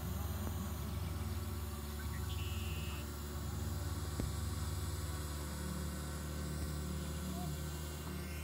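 Zino Mini Pro quadcopter hovering overhead, a steady propeller hum, with a short high beep about two and a half seconds in.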